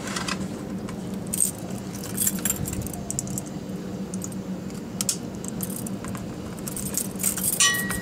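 Light steel chain links and an S-hook clinking and jangling as the chain is handled and clipped onto a PTO drive shaft's wide-angle guard, a few scattered clinks with several close together near the end, over a steady low hum.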